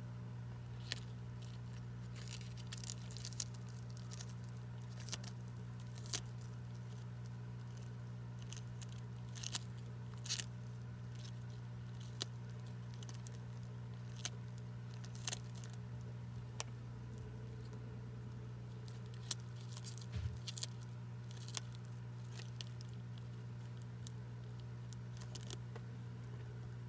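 Horsfield tortoise biting and tearing a leaf of greens held by hand, heard as irregular crisp snaps and crunches a second or two apart. A steady low hum runs underneath.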